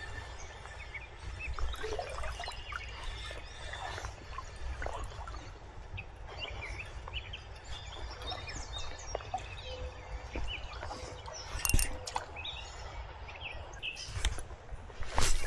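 Small birds chirping repeatedly over a steady low rumble, with a couple of sharp knocks, the louder one near the end.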